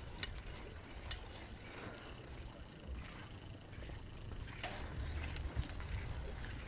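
Walking noise picked up by a handheld phone: a low steady rumble with a few scattered sharp clicks and ticks at irregular times, as the walker goes over paving and out onto the street.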